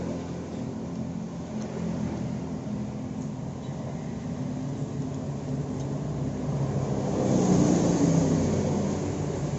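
An engine running steadily, swelling louder for a second or two near the end.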